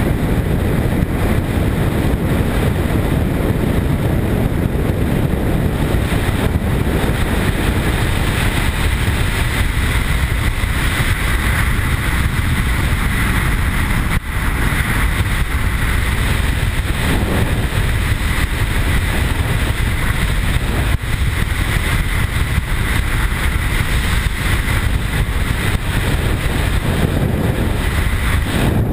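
BMW R1150 GS boxer-twin motorcycle cruising steadily at highway speed. The engine's drone is mixed with wind rush and road noise.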